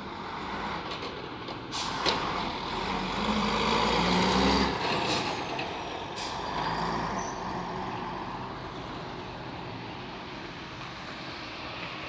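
Jelcz 120M/3 city bus with a WSK Mielec diesel engine driving past and pulling away, loudest about four seconds in and then fading into the distance. Three short, sharp hisses of compressed air come from it, at about two, five and six seconds in.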